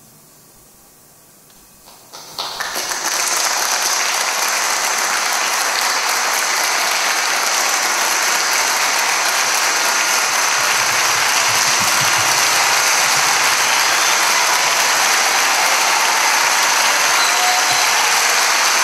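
A brief hush, then audience applause breaks out about two seconds in, swells within a second, and continues as steady, dense clapping.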